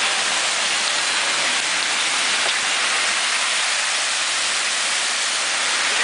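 Heavy rain pouring onto a flooded street: a steady, even hiss.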